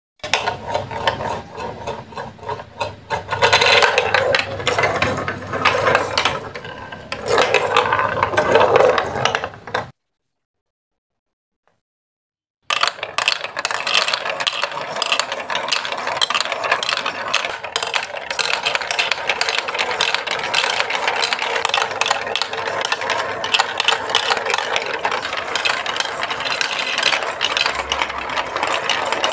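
Plastic balls rolling and clattering down the plastic chutes and funnels of a building-block marble run, several at once, making a dense rattle of clicks. It surges in the first few seconds and cuts out for about three seconds partway through, then comes back as a steady rattle.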